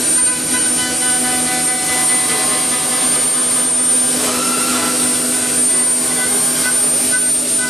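Woodworking machine running steadily: a loud, even mechanical noise with a constant high-pitched whine over it.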